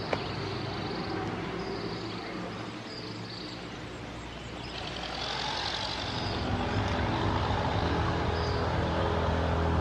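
Steady outdoor background noise, then a low, sustained music drone fades in and swells over the last few seconds.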